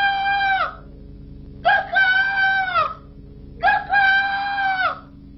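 A cartoon girl's high voice calling out three times, each a long held cry of about a second that drops in pitch at the end.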